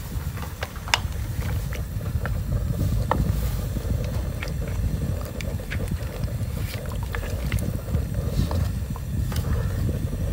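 Low wind rumble on the microphone, with scattered small clicks and scrapes of a wooden spatula stirring meat in liquid in a steel wok.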